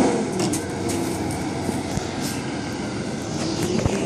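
Inline skate wheels rolling over a concrete driveway, a steady rolling noise with a few light clicks.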